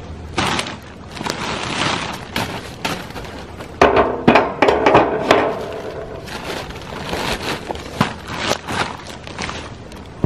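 Handling noise from a man moving around a chainsaw mill: rustling and crunching steps over plastic sheeting and sawdust, with metal clatter and scraping as he sets the log-pulling device onto the mill's metal rail. The scraping and clatter are loudest about four to five and a half seconds in.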